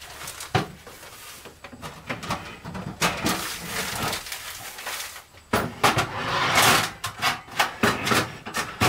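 A plastic bag being handled, rustling and crinkling in bursts, with short knocks and clatter of things set down on a wooden table.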